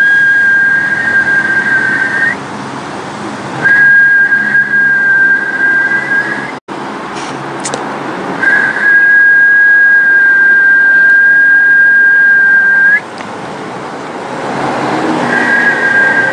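A high, steady whistle-like tone held for about two to four and a half seconds at a time, four times over, each beginning with a slight upward slide and breaking off abruptly, with a noisy hiss in the gaps between them.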